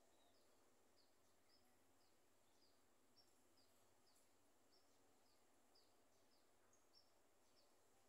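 Near silence, with faint short high chirps repeating about twice a second.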